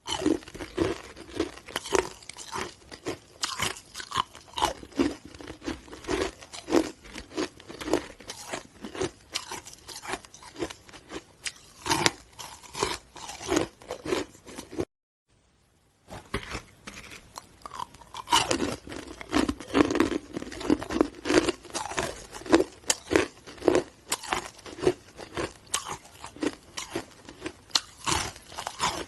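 A person chewing and biting through chunks of hard ice, a rapid run of loud, sharp crunches. It stops dead for about a second midway, then the crunching resumes.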